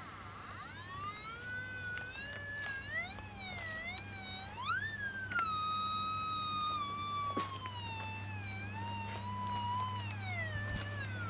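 Large frame-coil metal detector sounding one continuous electronic tone that glides up and down in pitch, with a steady low hum under it and a couple of sharp clicks midway.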